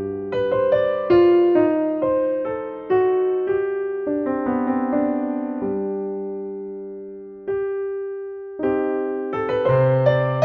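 Solo piano music, an allemande, played as a string of struck, decaying notes. One note is held and fades until a short break about eight seconds in, then the playing resumes.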